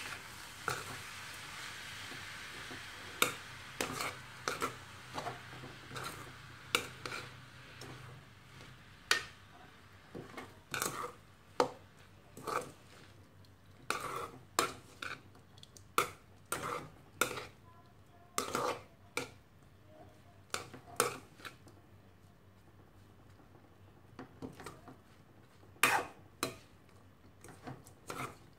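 A spatula scraping and knocking against a metal kadai as a dry eggplant-and-coconut stir-fry (brinjal thoran) is stirred: irregular scrapes and taps, about one or two a second. A steady hiss underneath stops about eight seconds in.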